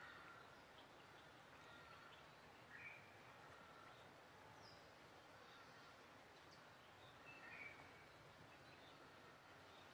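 Faint rural outdoor ambience with a few scattered bird chirps, the clearest about three seconds in and again about seven and a half seconds in.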